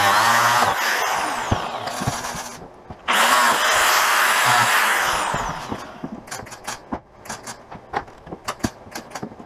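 Corded angle grinder cutting into the boat's deck, then switched off and spinning down with a falling whine. Just after three seconds in it is run again for about two seconds and spins down once more. A series of sharp clicks and knocks follows.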